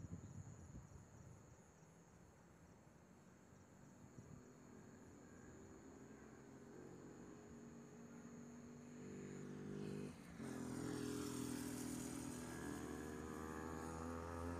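A vehicle engine speeding up, its pitch rising slowly and its level growing, with a brief dip just after ten seconds in, then running louder and still climbing.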